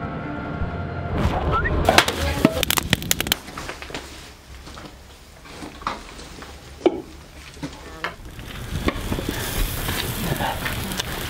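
Background music ends about a second in, giving way to camp cooking: scattered knocks and clicks of a knife and utensils on a table, with a hiss of food sizzling on a grill over a campfire building near the end.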